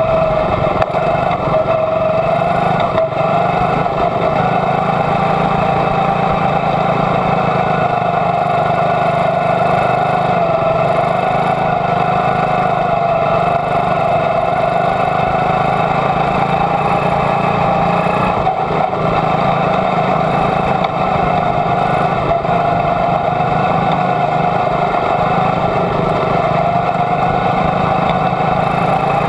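Quarter midget's small single-cylinder Honda engine running in a steady drone at an even throttle, its pitch wavering only slightly, heard from the car's own onboard microphone.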